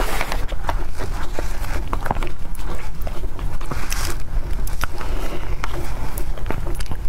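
Close-miked eating sounds: wet chewing with many small mouth clicks and crackles as soft chestnut-cream sponge cake is bitten and chewed, picked up by lapel microphones worn close to the mouth.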